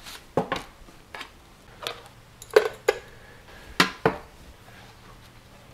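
Freeze-dryer food trays being handled and set down: a series of sharp clinks and knocks, about eight in all, irregularly spaced.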